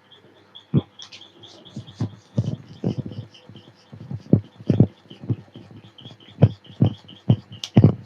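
Barber's percussive head massage: a quick, uneven run of dull hand strikes, palms and hand edges tapping and slapping on the client's head, about two to three strikes a second.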